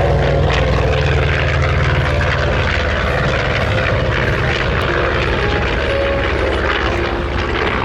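A Grumman F6F Hellcat's Pratt & Whitney R-2800 radial engine runs in a steady, loud propeller drone as the fighter flies past.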